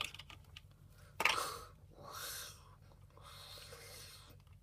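A TARDIS take-off sound effect: breathy, wheezing whooshes that swell and fade about once a second, the loudest and sharpest about a second in.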